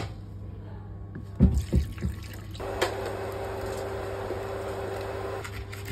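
Three dull knocks about a second and a half in. Then water is poured into a pan of dry kerupuk crackers, a steady rushing pour lasting about three seconds that stops shortly before the end, over a constant low hum.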